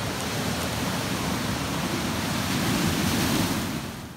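Ocean surf breaking and washing up a rocky cobblestone beach, a steady rush that swells a little and then fades out near the end.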